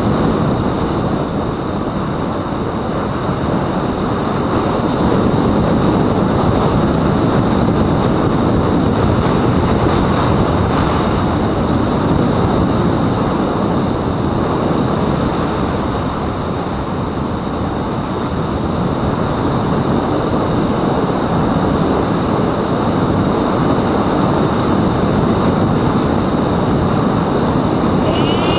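Wind rushing and buffeting over the onboard camera's microphone of a mini Talon RC plane in flight, with a faint steady high whine underneath.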